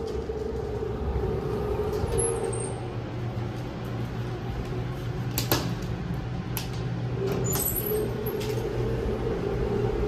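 Elevator car with a steady mechanical hum. The power door operator whines as the doors move at the start, and again near the end as they slide shut after the door-close button is pressed. There is a sharp click about five and a half seconds in.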